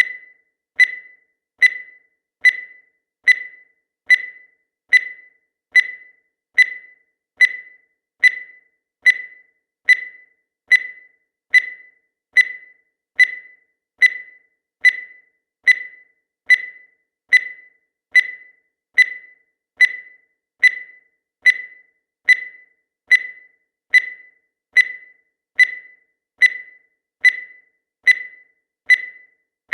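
Short high-pitched electronic beep repeated at an even pace, a little more than once a second, each beep starting sharply and fading quickly.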